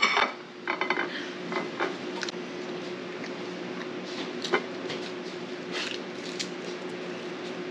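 Spoon and fork clinking and scraping on a plate now and then while eating, over a steady low hum.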